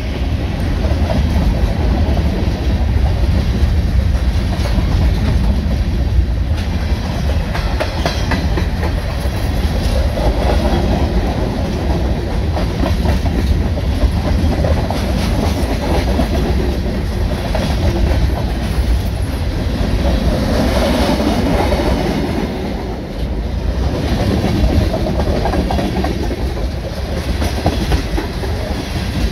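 Freight train's covered hoppers and tank cars rolling past, a steady heavy rumble of steel wheels on the rails with repeated clicks as the wheels pass over the track.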